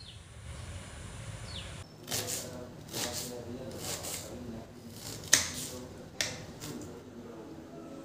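A knife slicing a red onion on a wooden chopping board: crisp cuts about once a second, with two sharper knocks of the blade on the board a little past the middle. Faint bird chirps come before the chopping starts.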